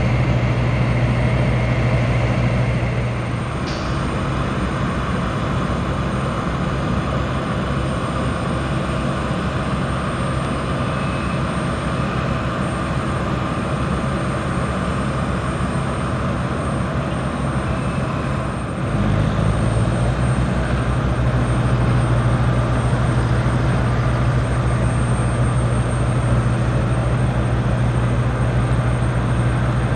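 Embraer 170 twin turbofan jet engines running, a loud steady noise with a low hum that eases about three seconds in and comes back strongly about nineteen seconds in.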